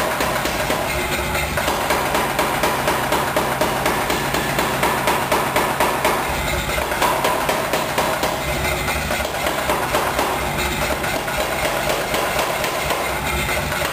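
Corsi Giovanni 40 kg power hammer pounding a red-hot iron bar in rapid, even blows, several a second, with the machine's motor humming underneath.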